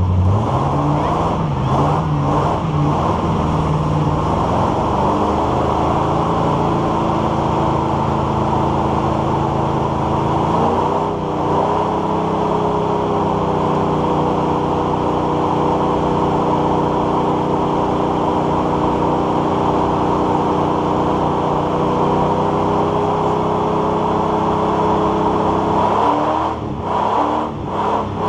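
Classic Chevrolet C10 pickup's engine held at high revs through a burnout, its rear tyres spinning on the pavement. About eleven seconds in, the revs climb higher and hold steady, then drop and break up near the end.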